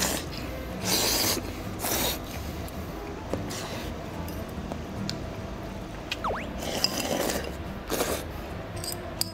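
A person slurping ramen noodles, noisy slurps in short bursts, about six in all.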